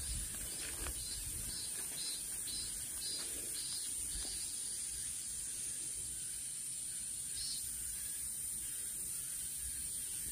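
A steady high-pitched insect drone, with a few short bird chirps about two and a half, three and seven and a half seconds in.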